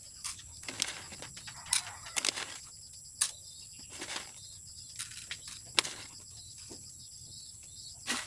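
Pigeon feed bowls knocking and clattering as they are picked up off a table and stacked, in irregular sharp knocks about one or two a second, over a steady faint high-pitched hum.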